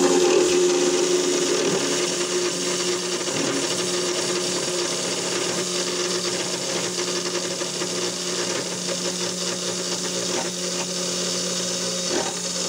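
A 3018 desktop CNC router's spindle humming steadily while its end mill cuts into aluminium, a dense steady cutting noise that comes up sharply at the very start.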